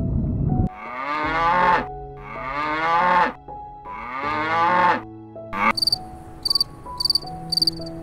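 Cow mooing three times, each a long call with a rising then falling pitch. From about six seconds in, crickets chirp in quick regular pulses.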